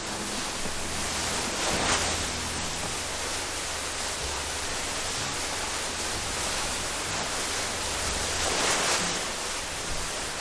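Steady rushing hiss of wind on the microphone, with a low rumble underneath, swelling briefly about two seconds in and again near the end.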